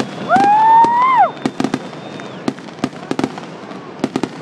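Fireworks display: rapid crackling and popping throughout, with a loud whistle that rises in pitch and then drops away at about a second in.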